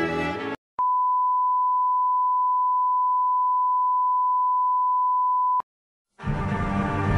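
Television test-card tone: one steady, unchanging pitch lasting about five seconds, switched on and off with a click. String music cuts off just before it, and ominous music begins about a second after it stops.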